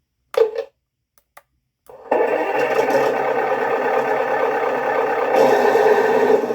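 Simulated tank engine start-up played by a Clark TK50S sound unit (M51 sound set) through a large custom speaker in a 1/16 RC tank: a short blip, then about two seconds in the engine sound starts abruptly and runs steadily and loud.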